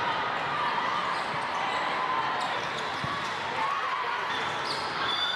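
Volleyball play in a large hall: balls being struck and bouncing, short squeaks from players' shoes on the court, and a steady crowd chatter, with one dull low thump about three seconds in.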